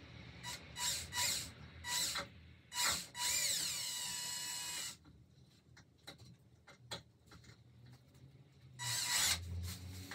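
Cordless drill running into the wood of a shelf frame: a few short trigger pulses in the first two seconds, a steady whine for about two seconds, then another short run near the end.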